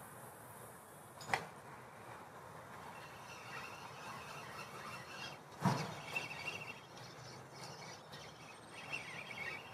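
Carp rod being cast out over a lake: a sharp swish-crack about a second in and a duller knock just before six seconds, over a low outdoor hush with faint high chattering in the background.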